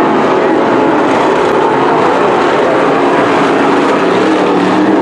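Several sportsman modified dirt-track race cars with GM 602 crate small-block V8 engines, racing together under power. Their engines make a loud, steady, overlapping drone that does not let up.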